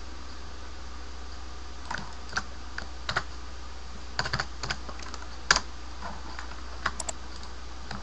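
Computer keyboard keys tapped in short, irregular clusters, starting about two seconds in, over a steady low hum.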